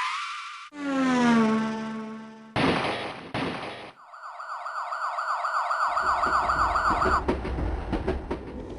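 A series of built-in General MIDI synthesizer sound effects played one after another: a falling pitch glide, two short noisy blasts, then a repeating synthesized siren wail lasting about three seconds, with a low rumbling effect coming in under it and running on after it stops.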